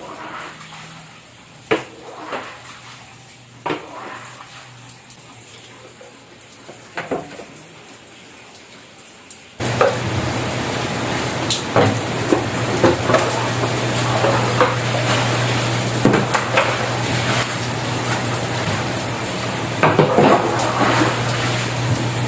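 Scattered clattering of pots and basins. About ten seconds in, a loud steady hiss of heavy rain and running water suddenly sets in and continues, with more knocks and clatter over it.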